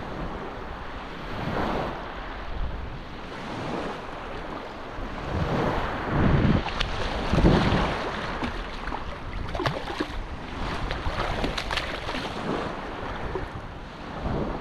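Small surf washing at the shoreline with wind on the microphone, and a hooked striped bass splashing and thrashing at the surface in shallow water, loudest in two surges about six and seven and a half seconds in.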